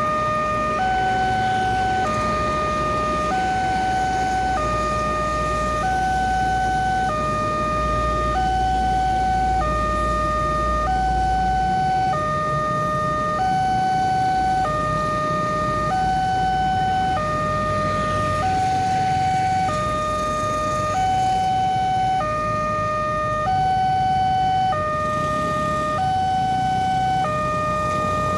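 Railway level-crossing alarm sounding: an electronic two-tone warning that alternates a lower and a higher note, each held about a second, over and over, signalling that a train is approaching the closed crossing.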